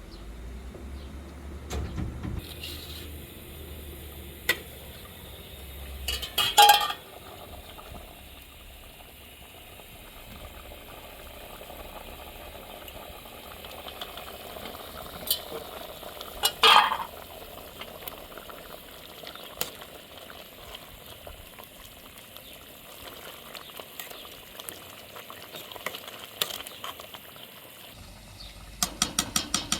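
Cooking in a pot: a utensil stirring, with several sharp knocks and clinks of metal against the pot over a faint steady sizzle. There is a low rumble for the first few seconds.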